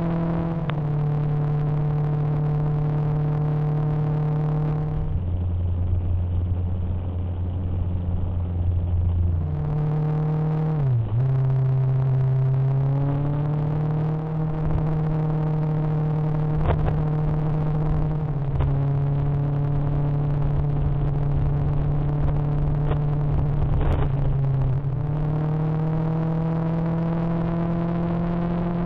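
Motorcycle engine running at a steady cruising speed under wind rush, its note holding level and shifting in steps. About eleven seconds in the pitch dips briefly and comes back, then climbs again as the bike picks up speed.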